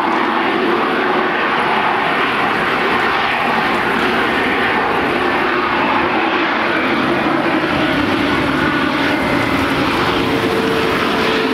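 CFM LEAP turbofans of an Airbus A320neo-family airliner running at taxi power as the jet rolls slowly along the taxiway: a steady, loud jet engine noise with a hum in it. A higher steady tone comes in about ten seconds in.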